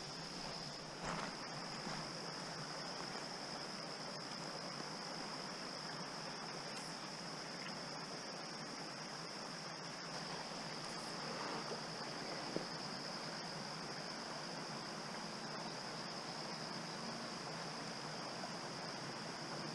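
Insects trilling in a steady, unbroken high-pitched drone over the faint, even rush of creek water, with a couple of light clicks.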